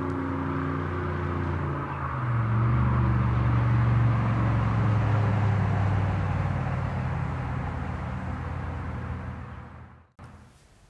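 An engine passing by: a steady low hum that grows louder about two seconds in, then fades away and cuts off abruptly near the end.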